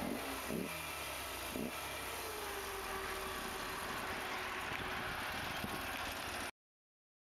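Harley-Davidson Sportster XR1200's air-cooled V-twin engine running, with a few quick rises and falls in pitch in the first two seconds, then a steadier note. The sound cuts out completely about six and a half seconds in.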